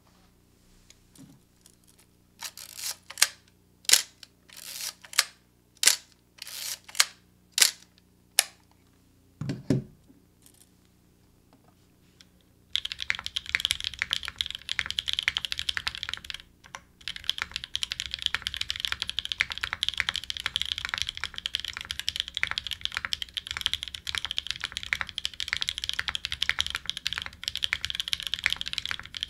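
Fast, continuous typing on a custom 60% mechanical keyboard with lubed Novelkeys Nolives linear switches, an aluminum plate and GMK keycaps. It starts about halfway through and breaks off briefly once. Before it come a dozen or so separate sharp clicks and one dull low thump.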